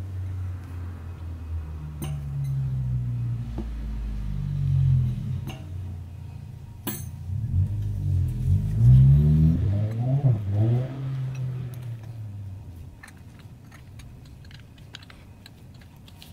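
A motor vehicle's engine revving and accelerating, its pitch rising and falling in several sweeps, loudest about nine to eleven seconds in, then fading away. A few light clicks and rattles of small parts being handled.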